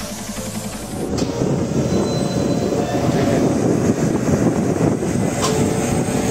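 Background music for about the first second, then a conductor tensioner machine running at a stringing site: a loud, steady mechanical rattle and clatter from the machine and the conductor running through it.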